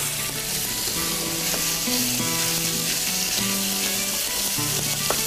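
Minced meat sizzling steadily in hot oil in a nonstick frying pan, pushed around with a wooden spatula, over soft background music.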